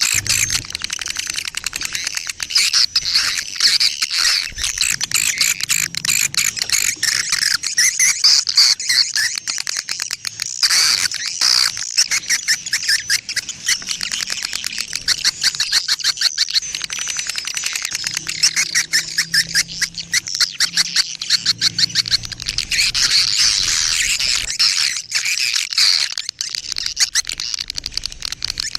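Small birds chirping rapidly and continuously in a dense, high-pitched chatter of many short notes.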